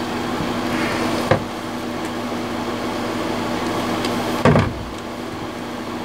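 Hand-pumped hydraulic lug crimper worked through its final pumps as the dies close on a battery-cable lug: a short click about a second in and a louder knock about four and a half seconds in, over a steady hum.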